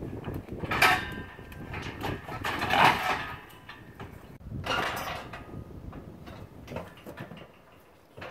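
Galvanised steel cattle crush clanging and rattling as a cow moves through it, knocking the steel floor and gates. A sharp ringing clang comes about a second in, a longer clatter around three seconds, another near five seconds, then lighter knocks.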